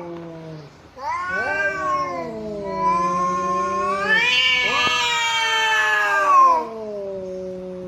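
Angry cats caterwauling: long, drawn-out yowls that waver and bend up and down in pitch, with a lower held moan under a higher howl. There is a short break about half a second in, and the yowling swells to its loudest a little after six seconds.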